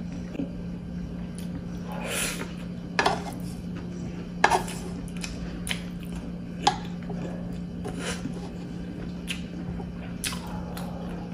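Wooden spoon scraping and knocking against a sizzling plate of squid in sauce, about seven separate clinks and scrapes spread through, over a steady low hum.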